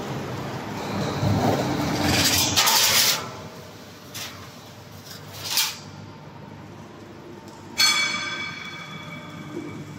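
Rbqlty 8x3200 CNC plate shearing machine cutting steel sheet: the blade stroke builds to a loud grinding shear that stops about three seconds in. Sharp metallic knocks follow at about four and five and a half seconds, then a sudden metal clang near eight seconds that rings on and fades.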